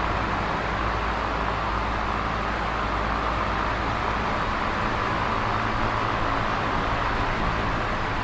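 Electric fan running steadily: a constant rush of air noise with a low, even hum underneath.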